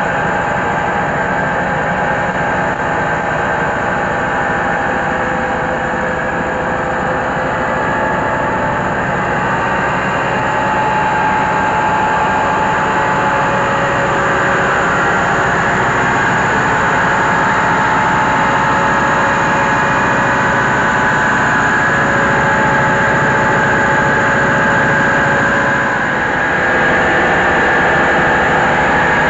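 Diesel-engine-driven rice huller running steadily while milling paddy: a dense, continuous machine din with a few steady high tones over it, a little louder from about ten seconds in.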